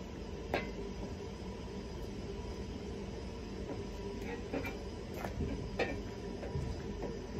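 Light clinks and knocks of a thin metal sheet and a wooden block being handled on a workbench: one about half a second in and several close together between four and six seconds in, some ringing briefly. Under them runs a steady low rumble with a faint hum.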